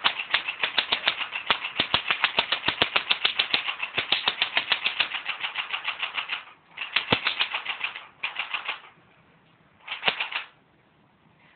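Well D90F P90-style BB gun firing full-auto: a rapid, even stream of clicks for about six seconds, then three short bursts, the last ending near the final second.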